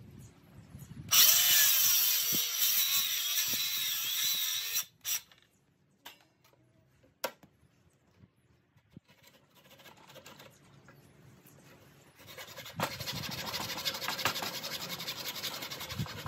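A cordless power tool cuts into a 6x6 timber post for about four seconds and stops suddenly. A few light knocks follow in a quieter stretch, and a second steady cutting sound starts near the end.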